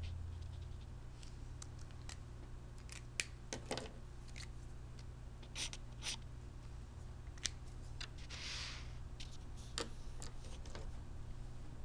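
Faint, scattered small clicks and taps, with a short scratchy rustle about eight and a half seconds in, over a steady low hum.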